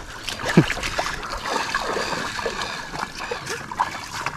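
Hands splashing and sloshing in shallow estuary water while picking fish out of a drag net, with irregular small splashes and drips. A brief falling sound about half a second in is the loudest moment.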